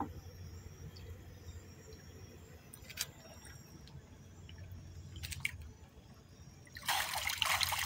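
Splashing in shallow water as someone wades, a loud burst about a second long near the end. Before it there is a low steady rumble with a few faint clicks.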